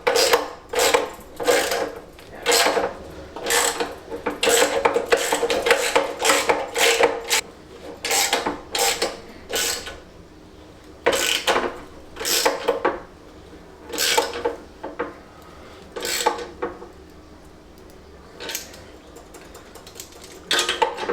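13 mm ratchet spanner clicking as it tightens the dynamo's mounting bolt: quick runs of clicks at first, then shorter bursts every couple of seconds as the bolt draws up tight.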